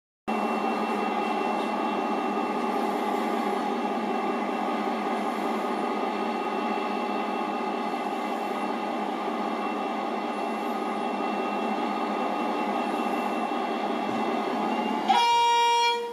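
Diesel locomotive's engine running steadily while the train stands at the platform, then one short horn blast of about a second near the end, signalling departure. Heard as played back through a television speaker, with little bass.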